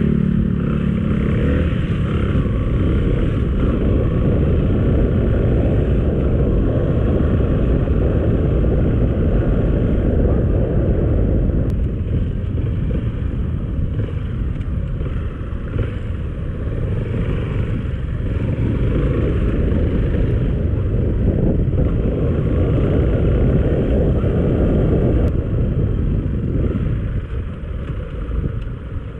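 Motorcycle engine humming steadily for about the first second, then the bike pulling away and being ridden, its engine lost in a dense, steady rush of riding noise.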